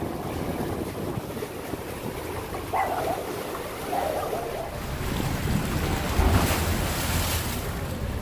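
Large steel river barge passing close, its engine running with a low rumble while water washes along the hull. Wind buffets the microphone, loudest about six to seven seconds in.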